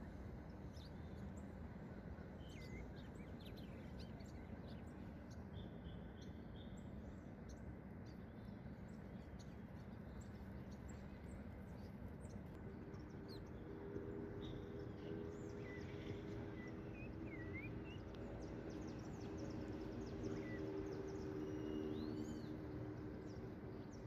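Quiet outdoor background noise with faint, scattered short bird chirps and whistles. A low, steady droning hum comes in about halfway through and fades just before the end.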